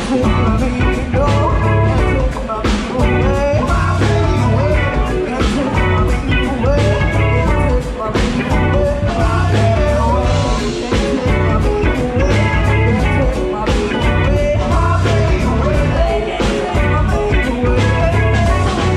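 Live band playing amplified music: a woman singing over electric guitars, bass and a drum kit keeping a steady beat.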